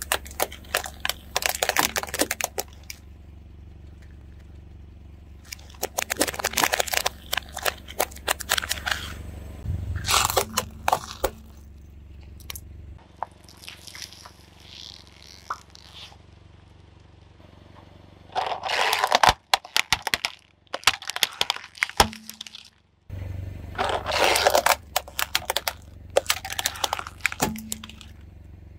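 Car tyre rolling over and crushing silicone pop-it fidget toys: dense crackling, popping and crunching in about five bursts a few seconds apart, over a low steady rumble.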